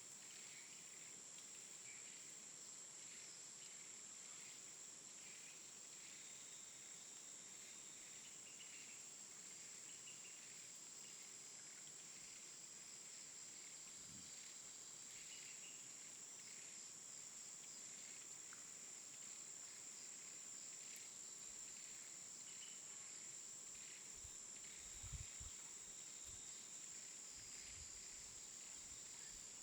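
Tropical jungle ambience: a steady high-pitched insect drone with scattered short chirping calls, and a few soft low thumps near the end.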